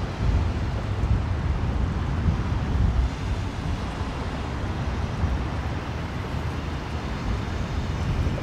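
Wind buffeting the microphone outdoors, a steady low rumble with small gusts and a faint hiss over it.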